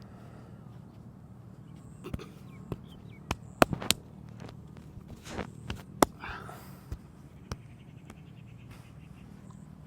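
Head and back massage: a run of sharp, irregular smacks and cracks from the masseur's hands, about a dozen between two and seven and a half seconds in, the loudest about three and a half and six seconds in. A low steady hum lies underneath.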